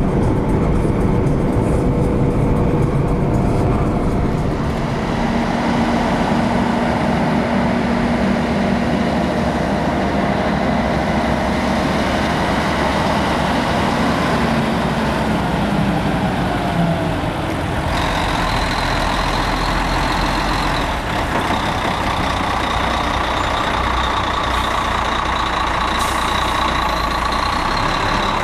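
Heavy diesel trucks, among them a Volvo FH box truck, running and driving slowly close by. The engine note is steady and drops away at about 16 s. From a little past the middle, a steady high whine runs along with the engine noise.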